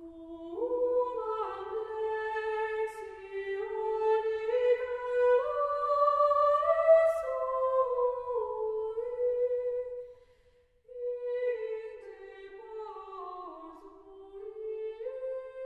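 Slow unaccompanied melody sung wordlessly by a woman: a single line of long held notes that step and slide between pitches, breaking off briefly about ten and a half seconds in.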